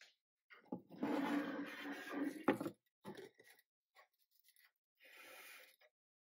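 Glass baking dish being slid across a workbench onto a flat LED flood light panel: a scraping rub lasting about two seconds with a sharp knock as it settles, then a few light taps and a shorter, softer scrape near the end.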